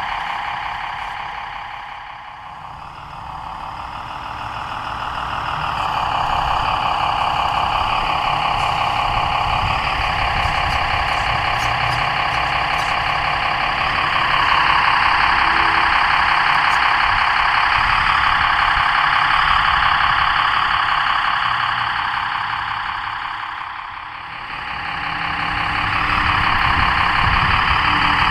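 Servonaut SM3 sound module in an RC Mercedes-Benz Unimog 406 crawler playing a simulated diesel engine through its small speaker, revving up and down with the throttle. It drops back toward idle about two seconds in and again near the end, then picks up again.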